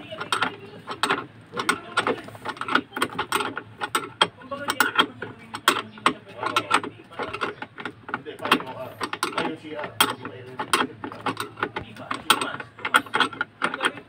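Rapid, irregular ratcheting clicks from a 2004 Isuzu Crosswind's seat belt retractor and anchor hardware as it is worked by hand. The belt's retractor spring had stopped pulling the webbing back.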